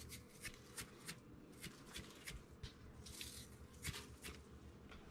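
Faint, scattered light ticks and rustles of hand handling: fingers sprinkling pinches of MSG crystals over raw whole fish on a cutting board and a plastic seasoning tub being handled.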